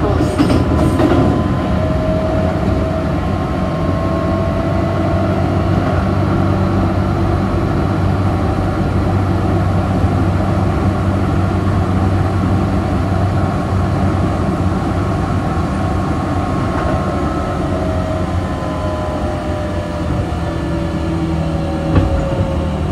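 Keihan 6000 series electric train running, heard from inside the car: a steady rumble of wheels on rail under the whine of the traction motors. The motor whine sinks slowly in pitch over the last several seconds as the train slows, and there is one sharp click near the end.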